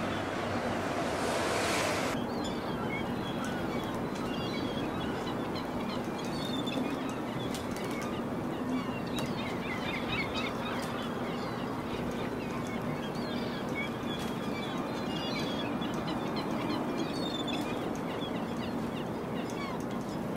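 Many small birds chirping over a steady background din with a low hum. A loud hissing rush fills the first two seconds and stops abruptly.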